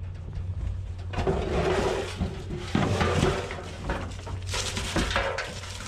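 Charcoal chunks and dry leaves scraping and rattling as they are tipped out of a rusty steel bowl into a plastic trash bin, with a few sharp knocks of the bowl.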